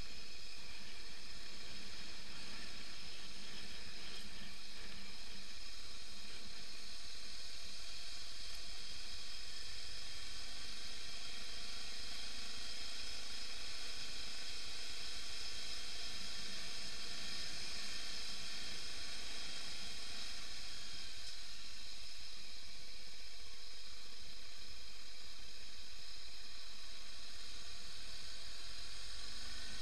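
Steady hiss of wind and tyre noise on a motorcycle riding a gravel road, as picked up by a bike-mounted action camera.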